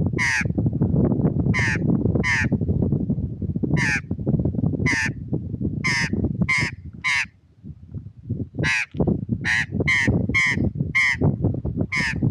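A bird giving short, harsh calls over and over, about fourteen in all, in twos and threes with short gaps. Under them runs a steady low rumble.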